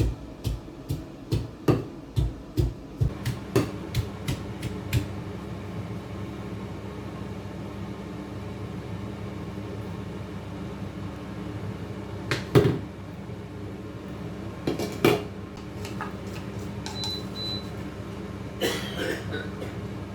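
Steady mechanical hum of a running appliance in a small room. For the first five seconds there is a run of regular knocks, about two a second. After that come a few scattered knocks and clatters, the loudest about twelve seconds in.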